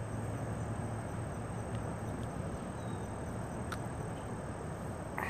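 Steady outdoor background of low hum and hiss with a faint, steady high insect drone, broken by a few faint light clicks as a hook is worked out of a small largemouth bass's mouth.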